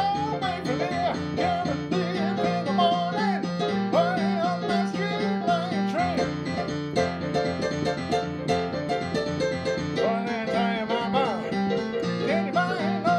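Piano played in a bouncing rhythm over a repeating bass figure, with a man's voice singing along.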